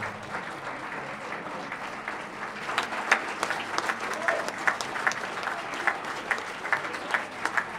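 Audience applauding: many hands clapping at once in a dense, steady patter, with a few voices among it.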